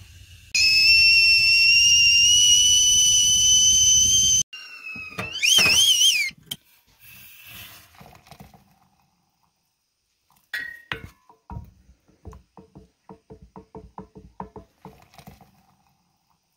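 Stainless-steel stovetop whistling kettle at the boil: a loud, steady high whistle, rising slightly, that cuts off abruptly, then a shorter wavering whistle. After that comes quieter pouring of hot water into a steel mug, and a run of light clicks near the end.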